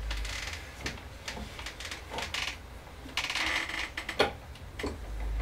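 Scattered clicking and light clatter from a computer keyboard and mouse being used, with a short rustle a little after three seconds in.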